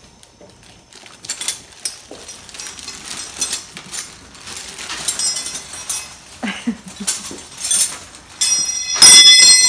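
Metal hand tools clattering and clinking as they are handled and rummaged through. Near the end comes a loud metallic clang that rings on briefly.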